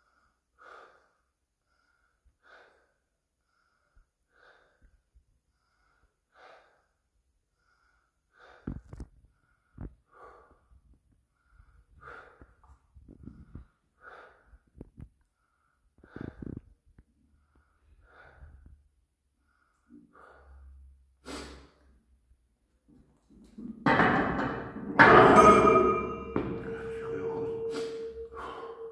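A strongman's short, sharp breaths every couple of seconds while he holds a 732.5 kg barbell across his back, with straining noises building up. Near the end a loud clatter follows, then a steady metallic ring, typical of the loaded bar and steel plates settling against the rack.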